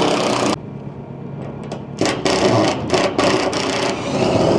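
JCB loader's diesel engine running steadily, with loud surges of rattling mechanical noise in the first half-second and again from about two seconds in.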